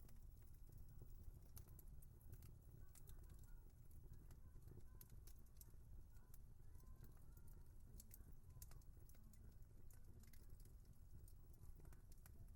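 Wood fire crackling faintly: irregular small pops and snaps over a low, steady rumble of the burning fire.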